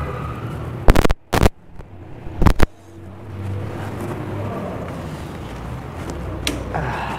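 Three loud, sharp knocks in the first three seconds, then a steady low hum.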